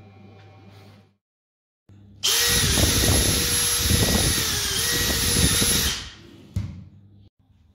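Cordless drill running in a 3D-printed drill guide for about four seconds, a steady motor whine that dips in pitch briefly twice.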